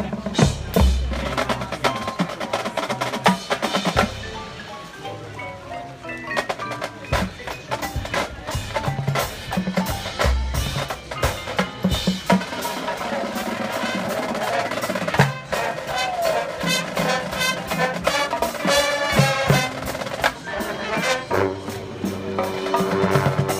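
Drum and bugle corps playing a field show: sharp mallet-percussion and drum strikes to the fore, with a few heavy bass-drum hits, and horns coming in more strongly in the second half.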